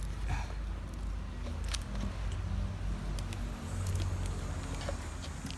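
A steady low motor hum, swelling a little about four seconds in, with a few light clicks and rustles over it.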